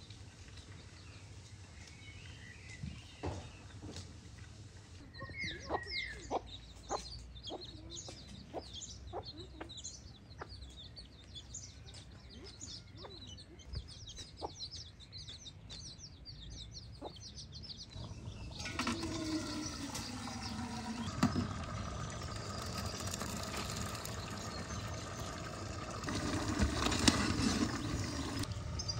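Small birds chirping and twittering in quick high notes, with scattered sharp knocks. About two-thirds of the way through, a louder steady noise with low, voice-like sounds takes over.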